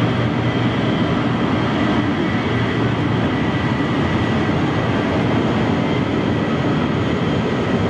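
Steady rushing jet noise with a faint high whine held throughout, from a taxiing BAC One-Eleven's rear-mounted Rolls-Royce Spey engines.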